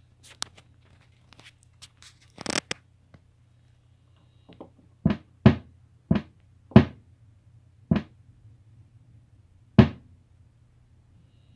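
Handling knocks on a small PAM8403 amplifier as its volume knob is fitted: light clicks, then about six loud sharp knocks with short ringing tails between about five and ten seconds in, over a steady low hum.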